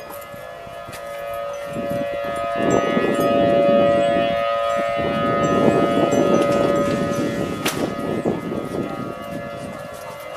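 Outdoor civil defense warning siren sounding a steady tone for the storm warning. Gusts of wind rumble over it on the microphone, loudest in the middle of the stretch.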